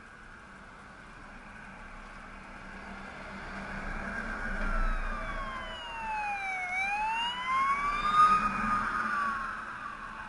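Siren of an emergency vehicle wailing, its pitch sliding slowly down and then back up, over the noise of passing road traffic that swells and fades.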